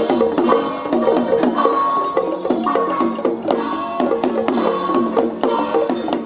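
Music: a busy melody with quick pitch turns over percussion with frequent sharp clicks.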